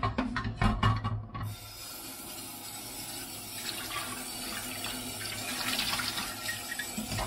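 A few clanks as a nonstick grill pan is handled at a steel sink, then the kitchen tap running steadily, its stream splashing onto the pan as it is rinsed.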